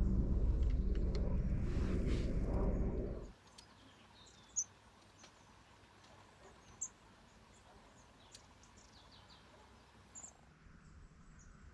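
A loud low rumble cuts off abruptly about three seconds in. After it comes quiet outdoor ambience with a few short, high bird chirps.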